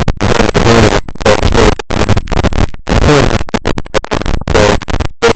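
Loud, harsh static from a malfunctioning microphone, crackling in choppy stretches broken by many brief dropouts, the sound of the mic failing rather than of anything in the room.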